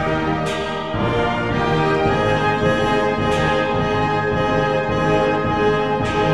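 Orchestral background music with sustained brass, horns carrying held chords, and a cymbal swell about half a second in and again near the end.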